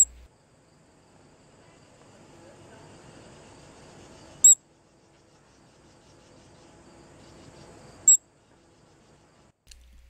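Three sharp, high-pitched chips about four seconds apart from a fledgling ruby-throated hummingbird. Under them runs a faint, steady, high insect trill.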